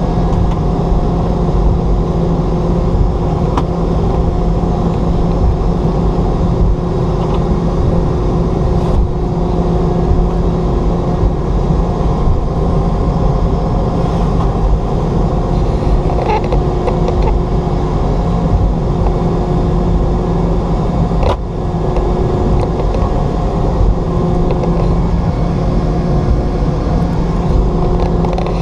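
Steady cabin noise inside a Boeing 717: a loud rumble with a constant engine hum from its rear-mounted Rolls-Royce BR715 turbofans. Two short clicks, about nine seconds and twenty-one seconds in.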